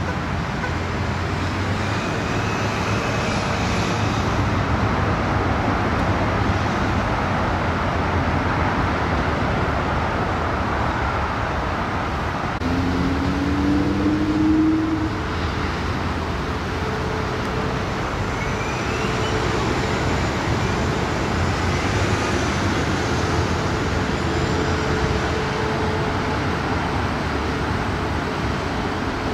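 Steady roar of regional jets' turbofan engines on the runway, with a brief slightly rising whine about halfway through that is the loudest moment.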